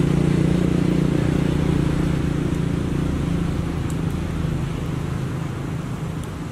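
Steady low engine hum, fading slowly toward the end.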